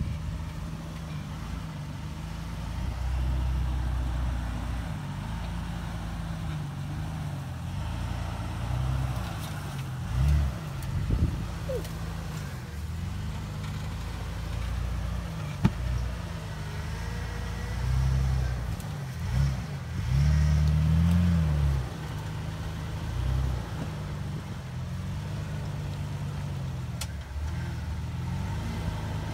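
Jeep Wrangler engine running at low speed as the Jeep crawls over rocks, rising in short bursts of throttle every few seconds and dropping back. A single sharp knock about halfway through.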